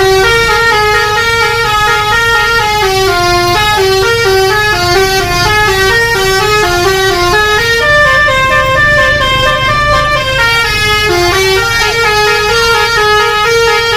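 Bus telolet 'basuri' musical air horn playing a continuous tune: short held notes, several a second, stepping up and down in pitch, loud, over a low steady rumble.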